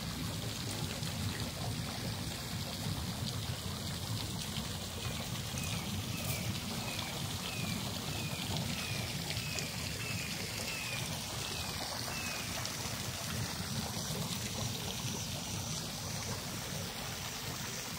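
Steady rush of water churning in a pool spa. Near the middle comes a run of short, high, falling chirps, about two a second.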